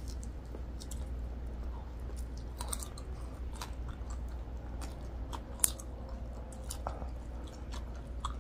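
Close-miked chewing of mouthfuls of spicy noodles by two people, with scattered short wet mouth clicks and one sharper click a little past halfway, over a steady low hum.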